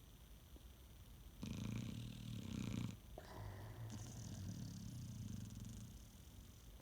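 A dog snoring. A louder snore starts about a second and a half in and lasts about a second and a half. A longer, softer breath follows and fades.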